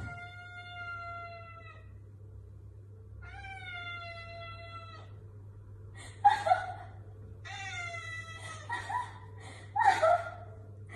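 Domestic tabby cat meowing: two long, drawn-out meows, then a run of shorter meows, the loudest near the end.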